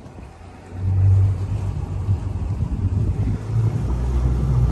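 Twin outboard engines throttled up hard in reverse about a second in, a loud low rumble that holds to the end.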